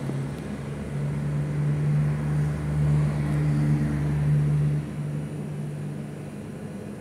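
An engine running steadily with a low hum, getting louder about a second in and dropping back just before five seconds.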